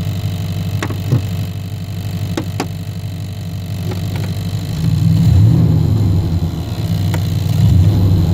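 A 1990 Chevy K1500's 5.7 L V8 idling, heard in the cab, with a ticking carried through the floorboard. The tick comes from a fuel line touching the floorpan and firewall and passing on engine vibration. The engine hum grows louder about five seconds in.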